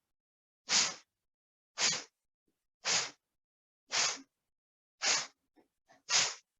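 Kapalbhati breathing: a run of sharp, forceful exhalations through the nose, one short puff of breath about every second, six in all.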